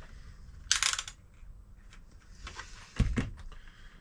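Small handling noises on a repair bench while a multimeter is set up for a continuity check: a short, sharp clatter about a second in and a dull knock about three seconds in.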